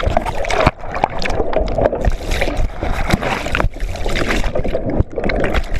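Loud churning, splashing water as a boat goes over, broken by many sharp knocks and thuds close to the microphone.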